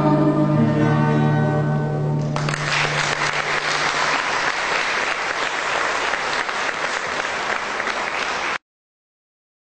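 A choir with guitar accompaniment holds the song's final chord, which breaks off about two seconds in, giving way to audience applause. The applause cuts off suddenly near the end.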